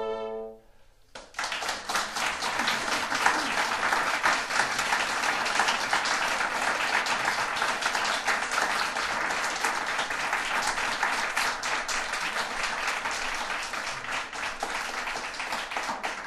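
The final held chord of a Baroque trio sonata on flute, violin, bassoon and harpsichord ends within the first second. After a brief pause an audience applauds steadily for about fifteen seconds.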